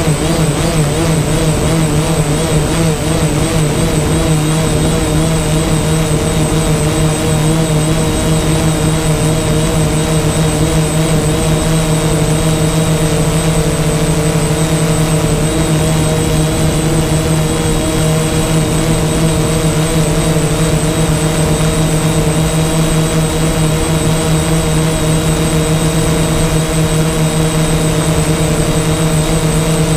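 DJI Phantom quadcopter's electric motors and propellers whining steadily, heard close up through the camera slung beneath it. The pitches waver at the start, then hold steady.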